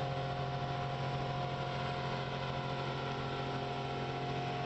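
An engine running steadily at a constant speed, a low drone with fixed tones that never rises or falls.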